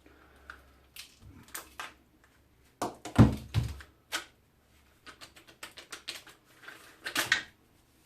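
Hand tools and plastic parts clicking, knocking and scraping as an electric strimmer's motor housing is worked apart, with one heavier knock about three seconds in and a quick run of small clicks later.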